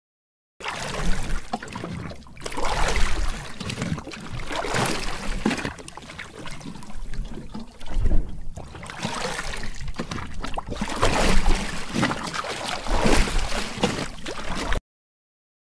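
Wooden paddles dipping and splashing through water, a rowing sound effect, swelling in surges every second or two. It starts abruptly just after the start and cuts off suddenly near the end.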